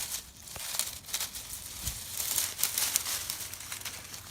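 Irregular rustling and crackling of dry leaves and dead brush, like footsteps moving through brittle winter undergrowth.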